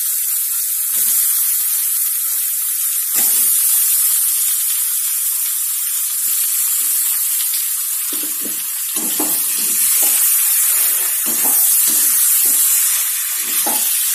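Raw chicken pieces sizzling as they fry in onion-tomato masala in a metal wok. From about halfway through, a perforated metal ladle scrapes and knocks against the pan as the chicken is stirred.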